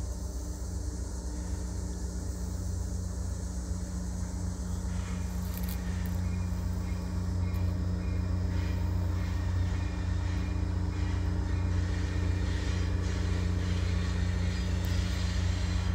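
Low, steady rumble of an approaching locomotive's engine, growing gradually louder, with a few faint clicks in the second half.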